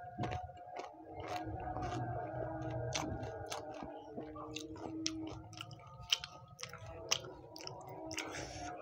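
Close-up chewing of a mouthful of pani puri, crisp fried puri shells stuffed with green chillies, with many short sharp crunches and crackles.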